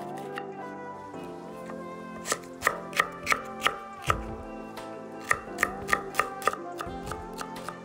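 Santoku-style kitchen knife chopping a red bell pepper on a wooden cutting board: crisp blade knocks on the board in two quick runs of about five chops each, roughly three a second.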